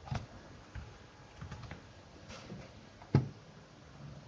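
Scattered, irregular clicks and taps of computer keyboard keys, a few soft ones and one sharper click about three seconds in.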